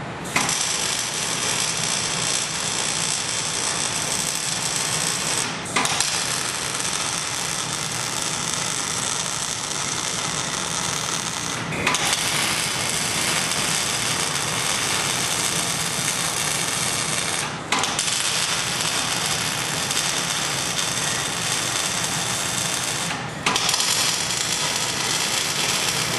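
Wire-feed (MIG) welder arc running steadily while tack-welding a square-tubing frame, with four brief breaks about six seconds apart.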